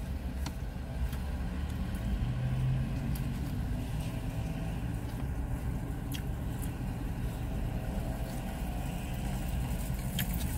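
Steady low rumble of a car engine idling, heard from inside the cabin, with a few faint clicks.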